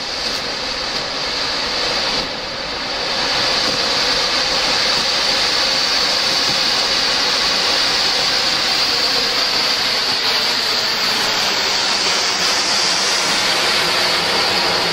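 Medium-size matka anar, a clay-pot fountain firework, spraying sparks with a loud, steady hissing rush. It builds over the first few seconds, dips briefly about two seconds in, then holds level.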